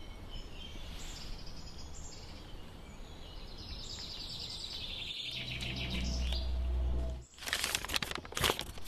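Birds chirping faintly over woodland ambience, with a low hum swelling for about two seconds and cutting off suddenly. Then stiff paper crinkles and rustles as a folded wanted poster is pulled open.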